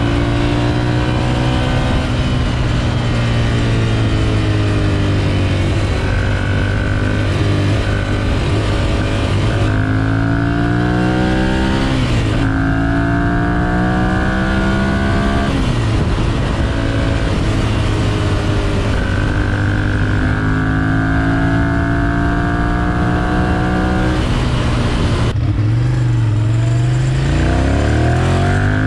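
2011 Ducati Monster 696's air-cooled L-twin engine accelerating through the gears: its note climbs in several long rising sweeps, each dropping back at a gear change. Near the end the revs fall and then swing quickly back up.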